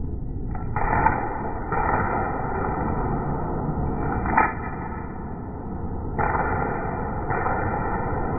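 Steady background noise with two short, sharp snaps about three seconds apart.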